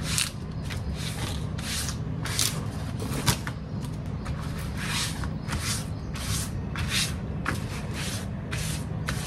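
A damp cloth rubbing along banana leaves: a run of short, rustling swishes, about two a second and unevenly spaced, over a steady low hum.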